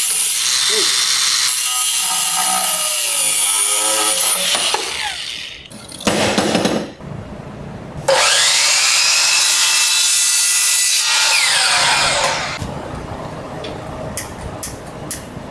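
A DeWalt cordless angle grinder runs steadily, grinding for about five seconds, and a short burst follows a little later. Then a DeWalt miter saw spins up, cuts through PVC pipe and winds down, its pitch rising at the start and falling away at the end. A few light clicks come near the end.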